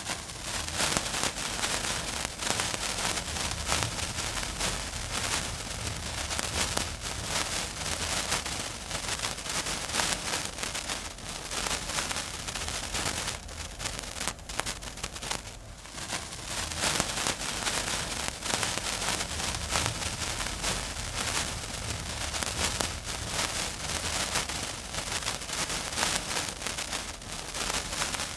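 Lit bomb fuse sizzling with a steady, dense crackle, dipping briefly about halfway through.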